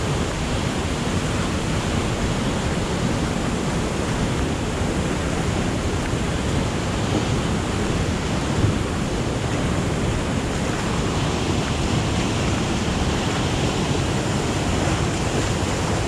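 River rapids rushing steadily over rocks close by: an even, continuous water noise with no break.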